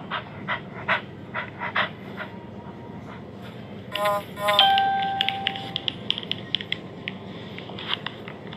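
A dog whining in short, repeated whimpers, then a two-note chime about four seconds in whose ringing tone fades over a second or so.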